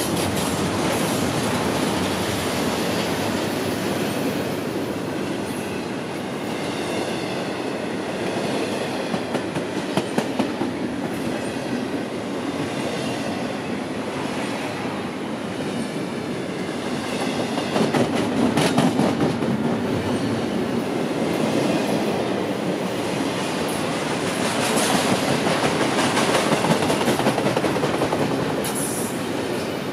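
Double-stack intermodal freight train's well cars rolling past at close range: a steady rumble and clatter of steel wheels on rail, with clusters of sharp clicks from the wheels about a third of the way in and again about two-thirds in.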